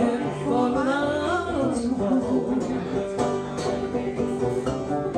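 Banjo and cello banjo played together in a live duet, plucked notes ringing over a deep low line from the cello banjo. A voice sings over the first couple of seconds.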